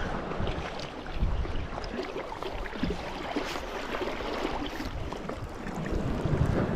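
Wind buffeting the microphone over the steady wash of surf. The low rumble is heavier in the first second and again near the end.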